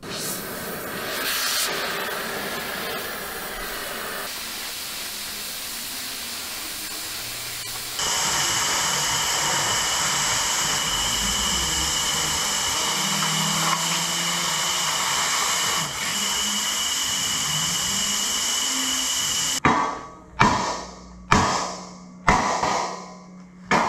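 Oxy-fuel torch flame hissing steadily: first heating a cast steel road wheel, then, about a third of the way in, cutting steel plate with the oxygen jet, which is louder and carries a steady high whistle. Near the end the hiss gives way to about five sharp metallic hits, each dying away quickly.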